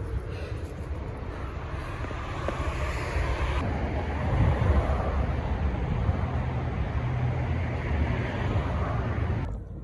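Wind buffeting the microphone on a moving bicycle, a steady rushing noise with a heavy low rumble.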